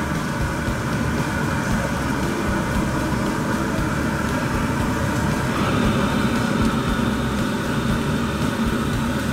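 Commercial gas wok burner running steadily under a wok of simmering sauce and meat. A brighter hissing sizzle joins about five and a half seconds in, as beaten egg is ladled into the hot liquid.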